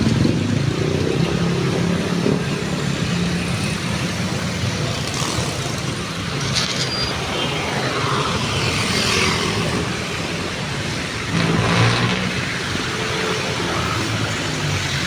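Road traffic: cars and other vehicles passing with engines running, one swelling louder about twelve seconds in.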